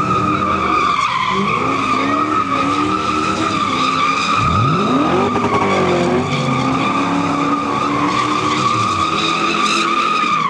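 Car's tyres screeching continuously as it spins donuts in a burnout, a steady high-pitched squeal, with the engine revving underneath and sweeping sharply up in pitch about halfway through.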